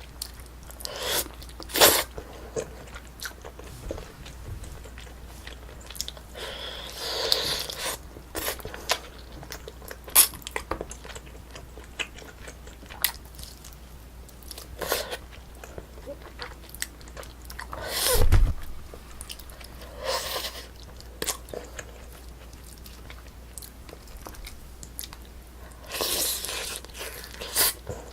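Close-miked eating sounds of braised spicy chicken being eaten: biting and chewing with soft crunches and wet clicks, in irregular bursts. A dull knock comes about two-thirds of the way through.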